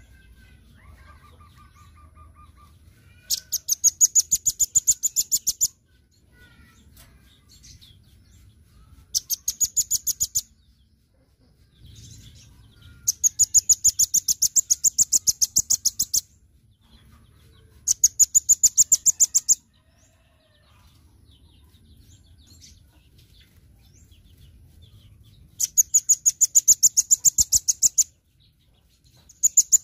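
Velvet-fronted nuthatch singing: fast, high-pitched trills of rapidly repeated notes, each two to three seconds long, coming in bursts with pauses of a few seconds between.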